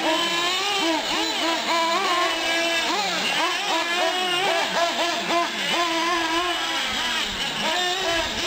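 Several small nitro engines on 1/8-scale R/C cars running together, their high-pitched whines rising and falling as the throttle opens and closes. The overlapping pitches hold steady for a second at a time, then sweep up or down.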